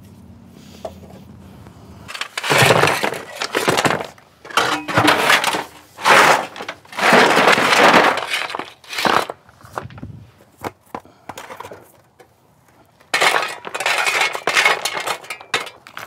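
River stones and cobble being shovelled out of a steel wheelbarrow and dumped around a fountain base, clattering and grinding against each other and the metal tray in several long, noisy bursts.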